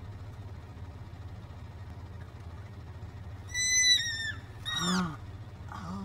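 Elk giving two high-pitched squealing calls over a steady low rumble. The first, about three and a half seconds in, is the louder and longer and falls away at its end; the second is short and drops in pitch.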